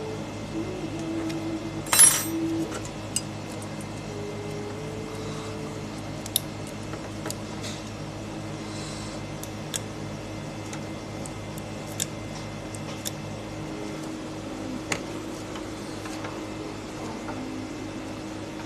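Small hard objects being handled: light clicks and clinks, with one louder clank about two seconds in, over a steady low electrical hum.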